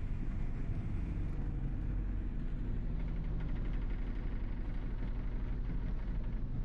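Excavator's diesel engine running steadily with a low drone.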